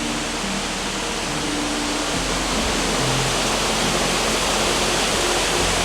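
Waterfall rushing: a steady, full hiss of falling water that grows slightly louder about two seconds in.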